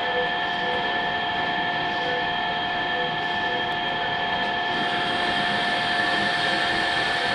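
Jet 7x12 horizontal bandsaw cutting through a stack of 1/4-inch flat bar in a gang cut: a steady, even whine of the running saw and blade with a few high tones held throughout.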